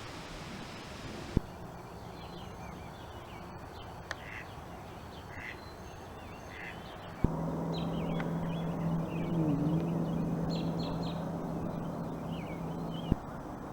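Birds chirping and calling outdoors, with a few short, harsher calls among the chirps. Sharp clicks mark abrupt changes in the background, and a steady hum runs through the middle stretch.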